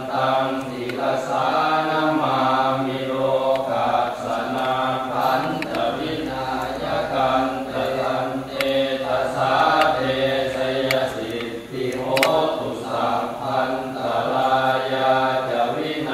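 Thai Buddhist chanting (suat mon, the temple's daily chanting service): several voices reciting together on a near-steady pitch, in long phrases with brief breaks between them.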